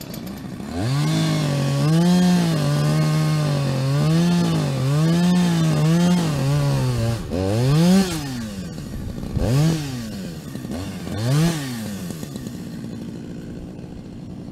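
Chainsaw engine revving, its pitch wavering up and down for several seconds, then three separate throttle blips that rise and fall.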